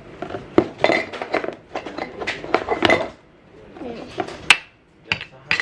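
Small toy ice cream cups, cones and spoons clicking and clattering against each other as they are handled. A dense run of clinks lasts about three seconds, then after a pause come a few sharp separate clicks near the end.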